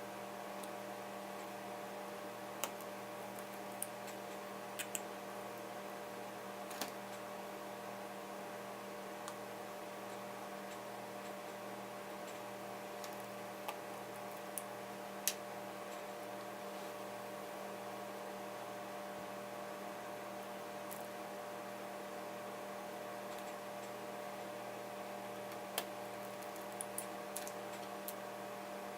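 Steady electrical hum with a dozen or so scattered small sharp clicks. The clicks come from tiny Torx screws and a precision screwdriver being set into a MacBook Pro's logic board.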